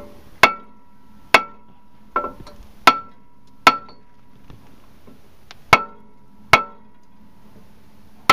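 A hammer striking a rusted-on 2004 Jeep Wrangler brake rotor about eight times at uneven intervals. Each blow is a sharp clang followed by a brief metallic ring from the rotor. The blows are meant to break the rust holding the rotor onto the hub.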